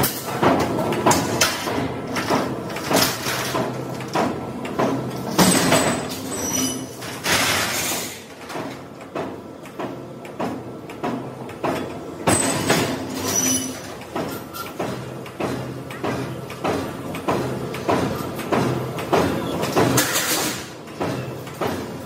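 Heavy steel plates clanking and scraping as they are dragged over one another and slid onto the bed of a hydraulic plate shear, with a few longer scraping rushes. A steady low machine hum runs underneath.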